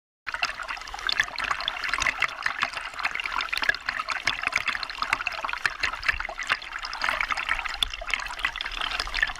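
River rapids rushing and splashing right at a water-level microphone: a dense, steady churn of water with many small splashes. It cuts in abruptly just after the start.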